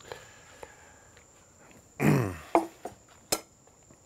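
A short, low, groan-like vocal sound that falls in pitch about two seconds in, then a few sharp clicks and knocks.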